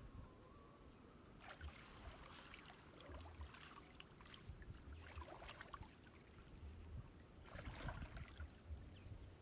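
Faint sloshing and splashing of shallow water as a person wades through it, in about four short bursts.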